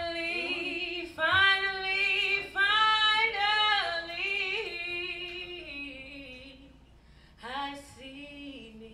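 A woman singing solo into a microphone, with no instruments heard: long held notes with vibrato and sliding pitch. The phrase fades out about six seconds in, and a short new phrase starts near the end.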